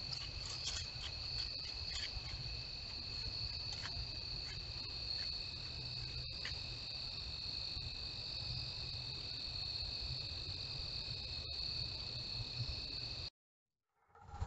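Crickets singing in a steady, continuous high-pitched chorus over a low background rumble, with a few faint crackles in the first second. The sound cuts off suddenly near the end.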